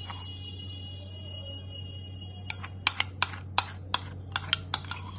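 A metal spoon knocking against the bowl while the last of the cake batter is spooned on top. About two and a half seconds in, a quick run of about a dozen sharp light clicks starts, over a steady low hum.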